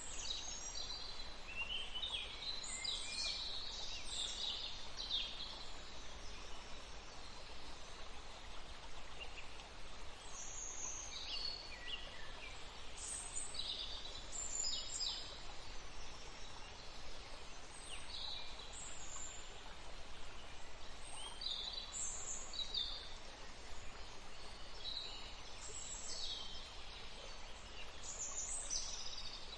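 Songbirds singing: many short high chirps and trills overlapping, one after another, over a steady background hiss.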